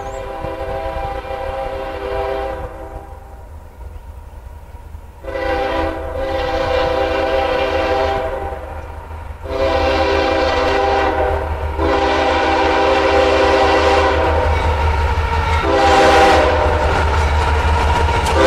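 Air horn of an approaching Union Pacific freight locomotive sounding a series of long multi-tone blasts with short gaps for a grade crossing, getting louder as the train nears. A steady low rumble from the train runs underneath.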